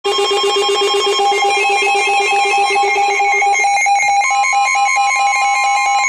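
Several NOAA weather radios sounding their alerts together for a Special Marine Warning: fast, evenly pulsing electronic beeps at several pitches overlapping. The lowest pulsing tone stops about three and a half seconds in, and a steady tone joins shortly after.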